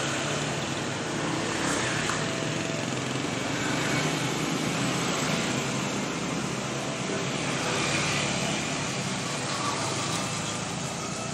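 Street traffic: motorbikes and cars running past on a busy city street, a steady mix of engine and road noise.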